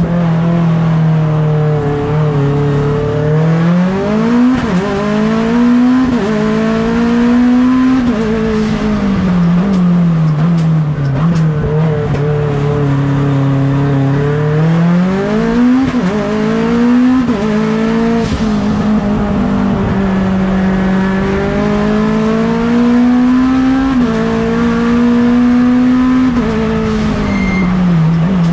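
Mitsubishi Lancer Evolution X race car's turbocharged 4B11 four-cylinder engine at racing pace, heard onboard. The revs climb hard several times, with sudden drops in pitch at gear changes, and fall away between the pulls.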